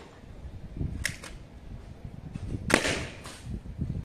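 Spring-powered toy BB rifle firing plastic pellets: a few short, sharp snaps, two close together about a second in and the loudest a little under three seconds in.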